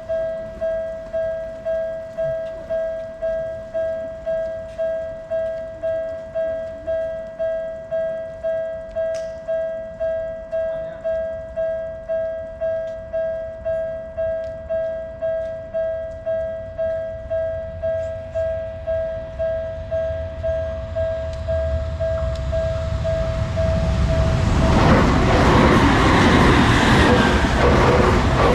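Japanese level-crossing warning bell ringing, a repeated electronic "kan-kan" tone at about one and a half strokes a second. A train's rumble builds under it, and about 25 seconds in the train passes loudly, drowning the bell.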